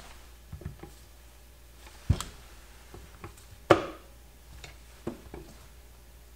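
Scattered plastic knocks and clicks as a headlight lens is pressed into its housing on warm, softened sealant: about half a dozen separate taps, the loudest about two and three and a half seconds in.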